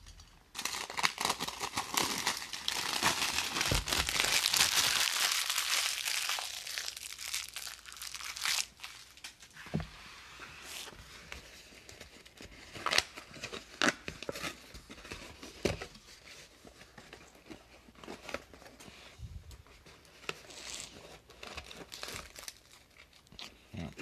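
Cellophane wrap on a trading card box being torn off and crumpled, a dense crinkling for the first eight seconds or so. After that come quieter, scattered crinkles and taps as the box is opened and its foil card packs are handled.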